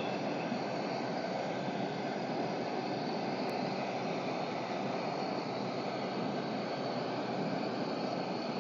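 Bars of soap frying in a pan of hot oil, giving a steady, dense sizzling and bubbling as the soap melts and foams.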